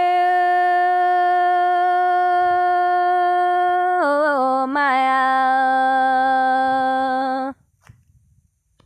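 A single unaccompanied voice singing a Dao folk song (hát lượn) in long drawn-out notes: one steady held note, then a downward slide with a wavering turn about halfway through into a lower held note that stops abruptly near the end.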